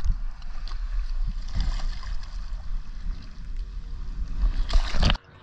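Inflatable boat under way over choppy sea, with a steady low rumble of wind on the microphone and water splashing along the hull. Near the end comes a louder rush of splashing, then the sound drops away abruptly to a muffled hush.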